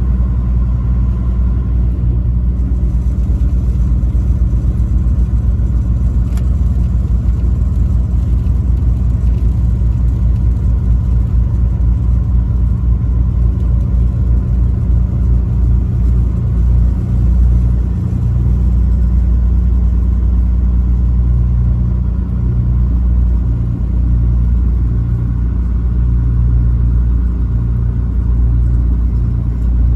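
Truck engine and road noise while driving at steady speed: a continuous low drone that holds level throughout.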